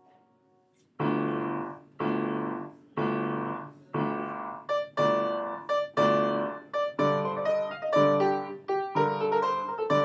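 Piano playing: after about a second of near silence, loud full chords are struck roughly once a second, then come faster and more broken up from about halfway in.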